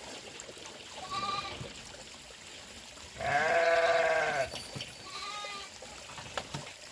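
Sheep bleating: a short high bleat, then one long, loud, quavering bleat about three seconds in, and another short bleat soon after.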